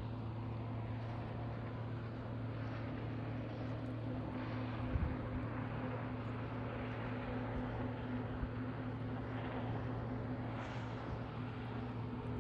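Boat engine running at a steady drone under an even hiss, with a brief thump about five seconds in.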